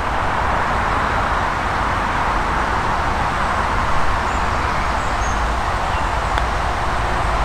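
Steady outdoor breeze: a constant hiss of wind through the trees with a low rumble of wind on the microphone. A faint click comes about six and a half seconds in.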